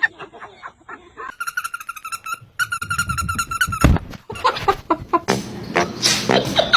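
Two long, steady, high-pitched animal calls, one right after the other, followed by a loud knock.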